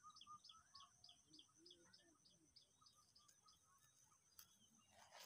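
Faint birdsong: one bird repeats a quick run of short, high, falling notes, about four or five a second, for about three seconds, with other scattered chirps and a steady high tone behind. A rustle starts near the end.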